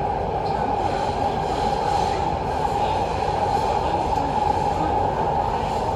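Metro train running at speed through a tunnel, heard from inside the carriage: a steady rumble of wheels on rail with an even roar that does not let up.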